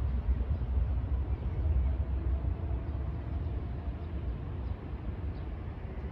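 Outdoor street ambience dominated by a steady, uneven low rumble, with a faint hum in the background.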